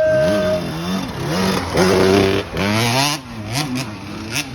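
Dirt bike engines revving hard, their pitch climbing and dropping again and again as the riders work the throttle and shift through the gears.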